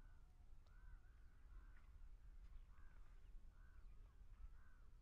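Near silence with faint bird calls: a short arched call repeated about six times.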